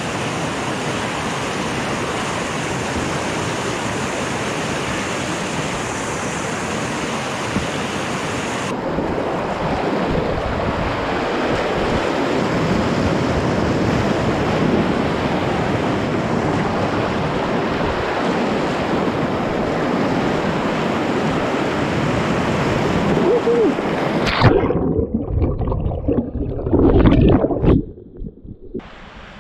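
Rushing whitewater of a river rapid at spring high water, a steady hiss of churning, splashing water right around the kayak. About 24 seconds in the sound turns duller and muffled, with a few heavy thumps, then drops much quieter near the end.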